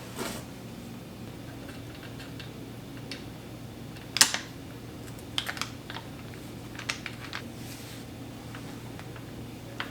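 Scattered light clicks and taps of bike parts and tools being handled, the loudest a sharp click about four seconds in, over a faint steady hum.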